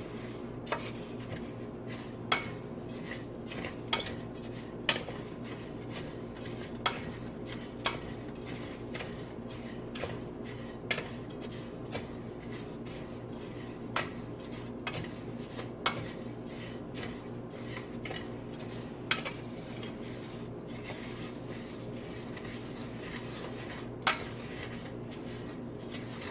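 A cooking utensil clinking and scraping against a pan at irregular intervals as raw rice is stirred while it browns in oil, over a steady low hum.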